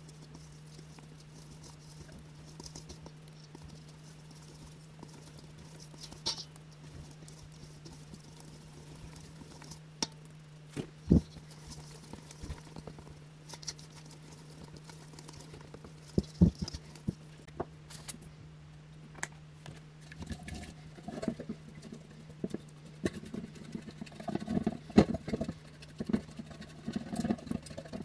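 Sieve and spatula knocking against a stainless steel mixing bowl, a few separate sharp taps at first, then a run of irregular soft knocks and scrapes in the last third as a spatula works thick cake batter. A steady low hum sits underneath.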